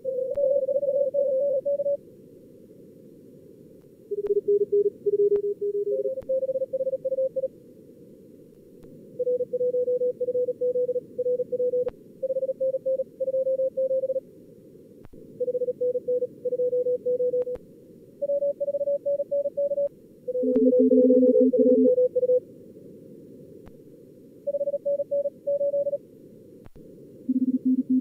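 Fast Morse code (CW) from a contest logger's simulated two-radio practice: keyed beeps at several different pitches as the simulated callers and the operator's own sending alternate between the two radios, sometimes overlapping, over a band-limited receiver hiss. A few faint clicks sound between the Morse groups.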